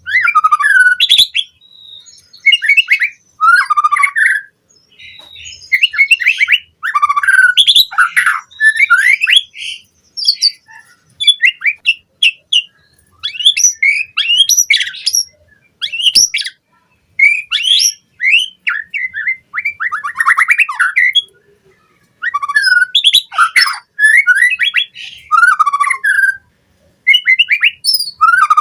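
White-rumped shama (murai batu) singing a fast, varied song of loud whistles, chirps and harsh notes, in bursts of a second or two separated by short pauses.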